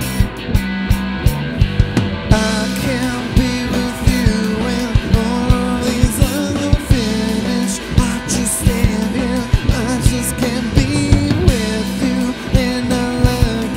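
Rock band playing live: electric guitar, bass guitar and drum kit keeping a steady beat. About two seconds in, the cymbals fill in and the band plays fuller, with a male lead vocal singing over it.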